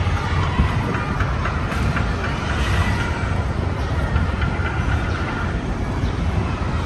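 Busy city street traffic: a steady low rumble of vehicles passing close by.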